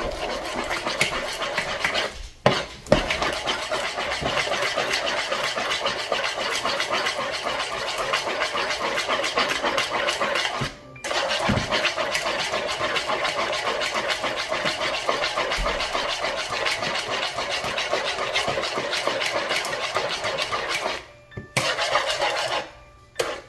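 Eggs, sugar and milk being beaten together in a mixing bowl: a steady, rapid beating noise. It stops briefly a couple of times about two seconds in, once around eleven seconds in, and twice near the end.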